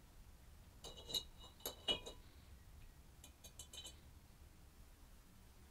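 Small steel parts (a coil spring and screws) clinking against the inside of a glass beaker of liquid as they are moved, with a short glassy ring after each tap. The taps come in a quick cluster about a second in, loudest just before two seconds, then a lighter cluster around three and a half seconds in.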